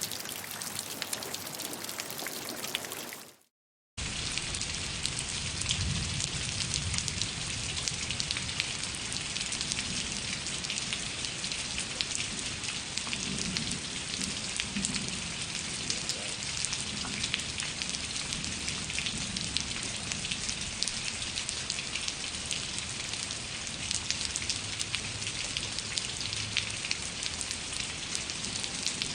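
Steady rain falling, with dense pattering drops. About three seconds in, the rain fades into a brief silent gap and then starts again abruptly, like a cut between two rain recordings.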